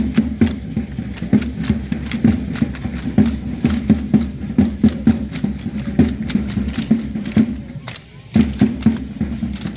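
Matachines dance performance: rhythmic clattering of the dancers' steps and rattles over a steady drum-and-music backing. The sound dips briefly about eight seconds in, then comes back.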